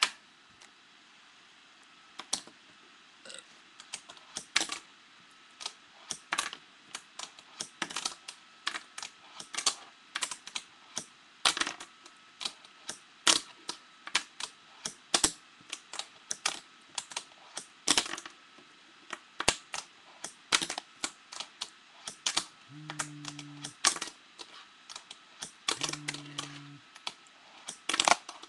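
Fingerboard with Black River trucks being popped and landed again and again on a hard surface: an irregular run of sharp clicks and clacks, two or three a second, from repeated attempts at a flip trick. Near the end, two short low hums, each about a second long.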